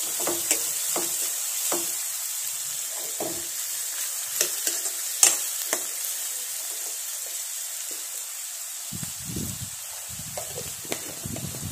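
Chopped onions and green chillies frying in oil in a ceramic-coated wok: a steady sizzle as they are sautéed until soft. During the first six seconds or so, a metal slotted spoon stirs them and clicks and scrapes against the pan, loudest about five seconds in; after that the sizzle carries on alone and fades a little.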